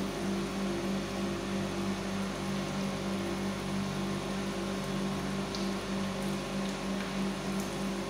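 Steady electrical hum of an induction melting furnace over an even hissing noise while molten metal pours from its tilted crucible into a ladle, with a few faint clicks.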